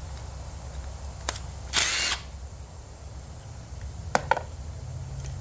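Clicks of tools on a small-engine carburetor being taken apart, with one short burst of noise about two seconds in and two sharp clicks in quick succession near the end, over a steady low hum.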